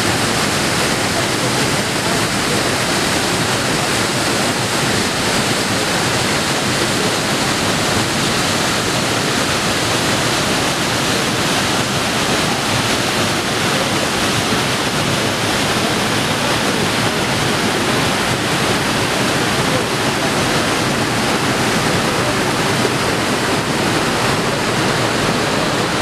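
Small waterfall plunging into its pool and the stream rushing over boulders below: a steady, unbroken rush of water.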